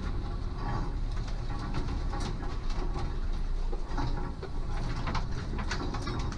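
Land Rover Defender engine running at low revs, crawling along a rough track, with branches and leaves repeatedly scraping and snapping against the vehicle.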